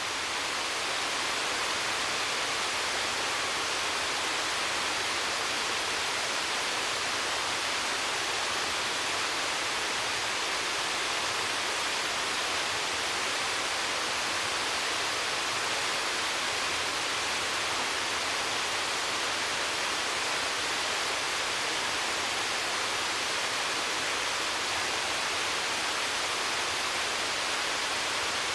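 Waterfall pouring steadily: an even, dense rush of falling water that fades up in the first second and then holds level.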